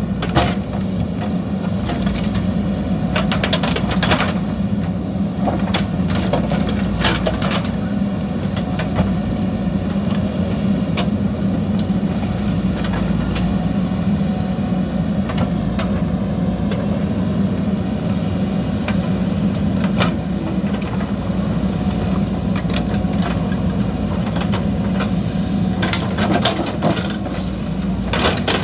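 JCB backhoe loader's diesel engine running steadily, with sharp knocks and clatters now and then and a cluster of them near the end.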